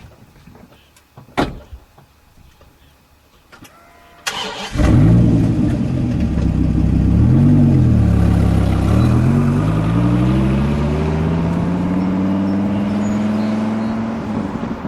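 The 1969 Dodge Charger R/T's 440 cubic-inch V8 starts about four and a half seconds in and catches at once, is blipped once, then runs with its pitch slowly rising. A few sharp knocks come before it, the loudest about a second and a half in.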